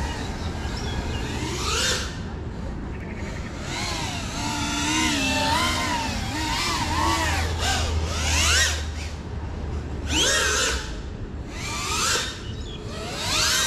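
FPV quadcopter's brushless motors whining in flight, the pitch wavering with throttle and sweeping up sharply in quick punches, once near the start and three times in the last few seconds.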